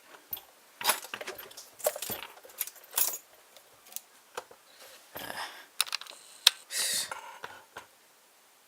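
Metal lock pick and tension wrench clicking and clinking irregularly against a padlock's pin-tumbler cylinder as they are worked into the keyway. The clicks stop about eight seconds in.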